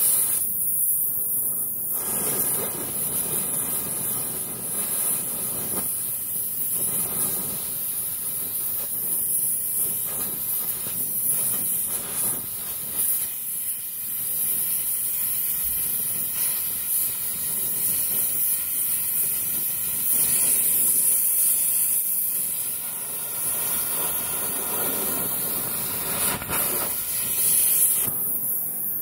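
Oxy-propane cutting torch hissing steadily as its cutting-oxygen jet burns through quarter-inch steel plate, the hiss rising and falling a little as the cut goes on.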